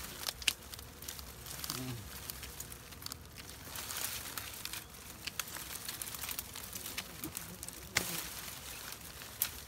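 Dry twigs, stems and leaves rustling and crackling as hands push and pull through dense brush, with scattered sharp snaps and clicks of breaking twigs.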